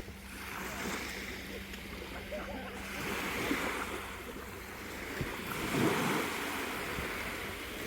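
Small waves of a calm sea washing in, swelling twice, with a faint steady hum that stops about three seconds in.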